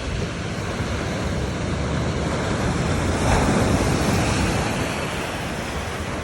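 Black Sea surf washing onto the shore, one wave swelling to a peak about halfway through and then drawing back, with wind rumbling on the microphone.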